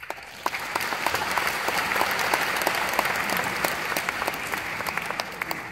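Audience applauding at the end of a choir's song, breaking out suddenly and thinning out near the end.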